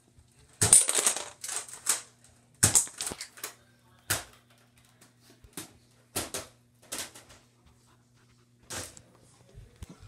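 Irregular string of sharp plastic clicks and clatters from Nerf blasters and foam darts, about a dozen in all, the loudest cluster about a second in.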